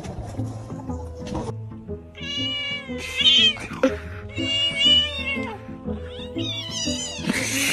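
Kittens mewing: a string of about four high, wavering meows starting about two seconds in, over background music.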